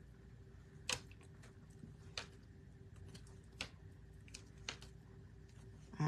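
A handful of faint, light clicks and taps from small metal butterfly embellishments being picked off their sheet and handled on a craft cutting mat, the sharpest about a second in. A low steady hum runs under them.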